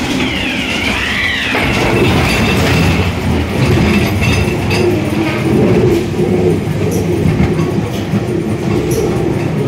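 Ghost train ride car rolling along its track, rumbling and clattering over the rail. A high wavering tone rises and falls over the first second and a half.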